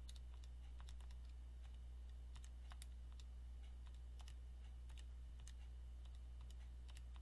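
Calculator keys pressed in an irregular series of soft clicks, keying in a three-number sum, over a steady low electrical hum.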